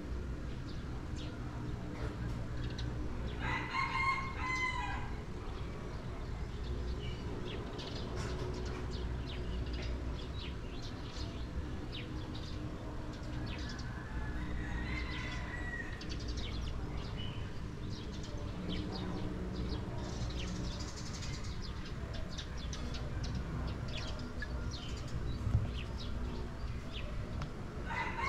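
A rooster crowing, one long crow about three seconds in and another about fifteen seconds in, with a third starting right at the end, over a steady low background rumble.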